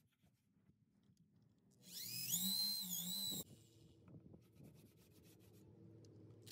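Drill spinning a 3M adhesive remover wheel to strip leftover trim glue from a truck's paint. A whine rises as it spins up about two seconds in, wavers and dips briefly, then cuts off sharply about a second and a half later. Faint rubbing follows.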